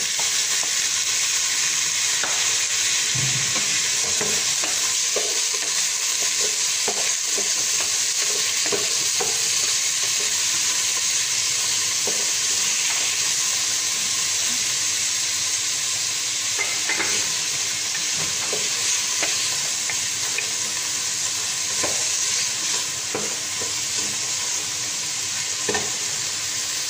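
Shredded boiled chicken sizzling loudly in hot oil with garlic and onion in a stainless steel pot, the sizzle starting abruptly as the chicken goes in. A wooden spoon stirs and scrapes through it with scattered light knocks against the pot; the sizzle is a little softer near the end.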